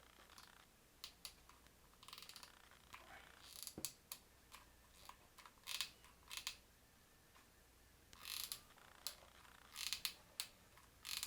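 Faint scattered clicks and short rustles of cardboard craft pieces being handled and fitted together, with a few louder rustles in the second half.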